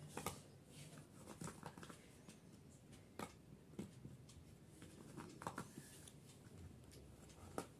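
Faint scattered clicks, taps and scrapes of hands opening a small black box that holds a wireless lapel microphone set.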